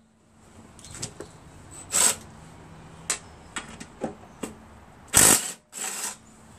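Cordless impact driver run in short bursts on engine-cover bolts, once about two seconds in and again around five seconds in, where the loudest burst is followed by a shorter one. A few light clicks of tool and metal fall in between.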